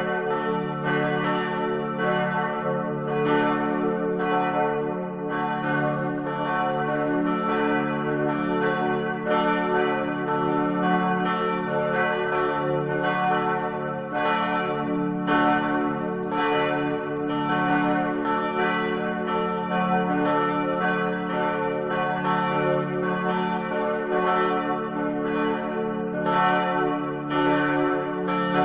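Church bells ringing continuously: several bells struck in quick succession, about two strikes a second, over a steady hum of their overlapping tones.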